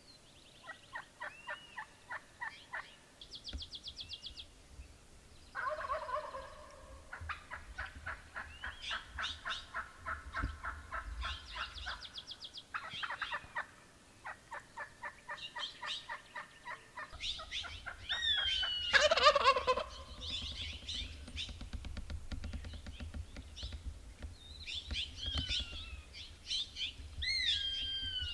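Gould's wild turkey gobbling, once about six seconds in and again, louder, about two-thirds through. Around it, songbirds keep up rapid chattering trills and high falling whistles.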